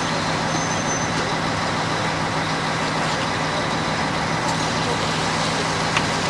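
Steady drone of a large engine running, with a constant low hum and hiss, and a single small click near the end.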